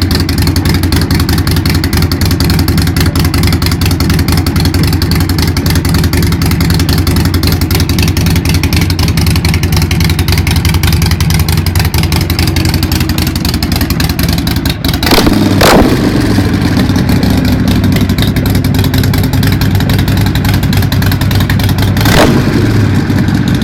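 Harley-Davidson Nightster's air-cooled 1200 cc V-twin idling loudly through newly fitted aftermarket exhausts, with two quick throttle blips, one about two-thirds of the way through and one near the end.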